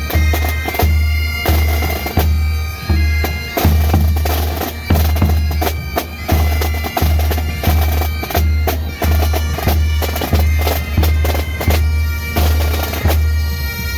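Pipe band playing: highland bagpipes holding the tune over their drone, with the bass drum beating a steady march pulse of about one and a half strokes a second.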